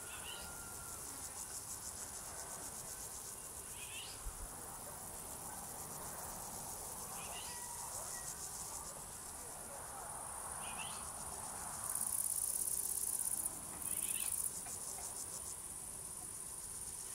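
A chorus of crickets singing steadily in a high, fine pulsing trill. A nearer one sings louder for about two seconds past the middle, breaks off briefly, then goes on for a second more.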